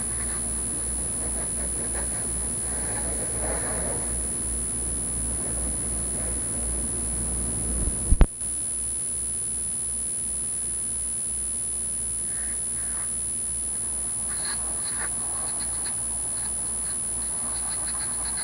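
Garden hose spraying water onto a car, under a steady low rumble of wind on the microphone. One sharp knock comes about eight seconds in, and faint light ticks come near the end.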